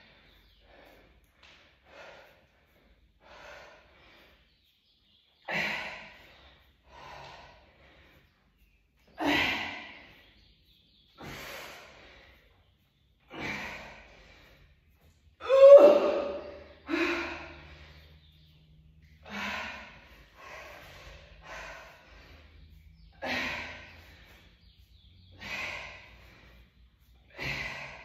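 A woman breathing hard under exertion: a string of sharp gasping breaths, about one every two seconds. The loudest, about sixteen seconds in, is a strained voiced gasp.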